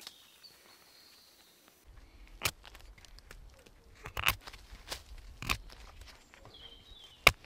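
A few sharp cracks and knocks at irregular intervals, starting about two seconds in, the sharpest near the end; faint high chirps like small birds are heard between them.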